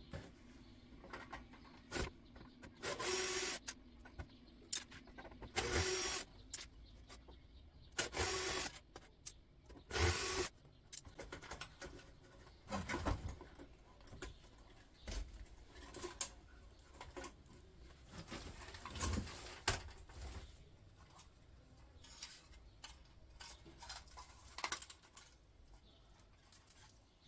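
Cordless drill with a flathead bit run in short bursts of under a second to about a second, driving out screws, with scattered clicks and knocks of metal parts between.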